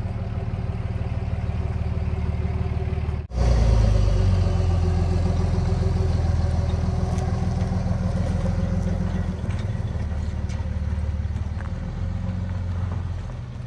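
Wheel loader's engine running steadily under load while it moves a junk car, with a momentary break about three seconds in and slightly louder running after it.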